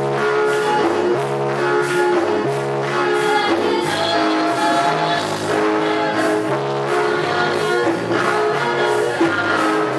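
Yamaha PSR-E473 electronic keyboard playing a song with held notes over a repeating bass line, a woman singing along.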